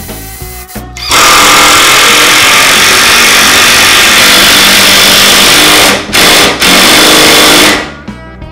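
Cordless impact driver running at full speed as it drives long screws into a plywood corner, a loud rapid hammering rattle lasting about six and a half seconds. It stops twice for an instant near the end before cutting off.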